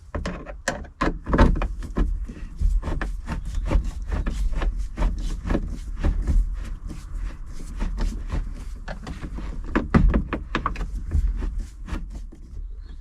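Irregular clicks, knocks and rattles of a plastic roof console and sun visor being pressed against the vehicle roof while screws are worked into the mounting holes.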